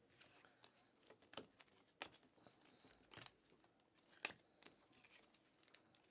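Trading cards being thumbed through one at a time in the hand, a faint tick or snap as each card is slid off the stack, irregularly about every half second to a second, the sharpest about four seconds in.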